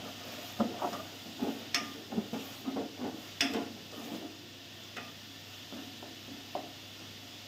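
Wooden spatula stirring and scraping minced meat being roasted in a steel pot: a quick run of scrapes and knocks for the first few seconds, then a few more spaced out. A steady faint sizzle of frying runs behind.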